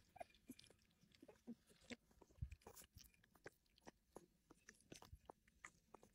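Puppies eating soft, mushy weaning food: faint, irregular wet smacking and chewing clicks, several a second, with an occasional soft bump.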